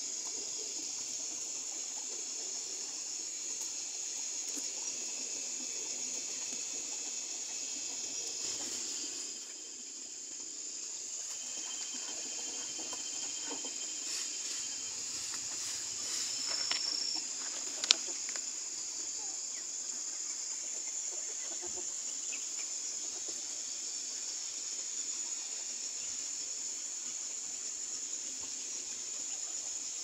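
Insects droning steadily at a high, even pitch, with one sharp click a little past halfway through.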